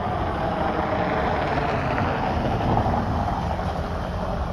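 Road noise from a car passing on wet pavement: a tyre hiss that swells about halfway through and then fades, over a low rumble.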